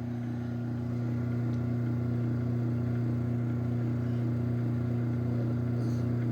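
Garage door opener's motor running steadily while closing, a constant hum with a light regular pulse.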